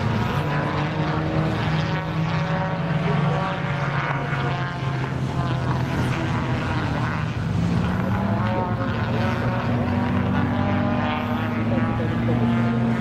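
Engines of several classic racing cars running on the circuit, their pitch rising and falling with throttle and gear changes, a little louder near the end as a group of cars approaches.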